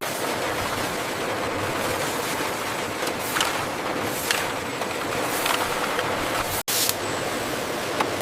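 Steady machine noise with a hissing edge and a few short, louder hisses, dropping out for an instant about six and a half seconds in.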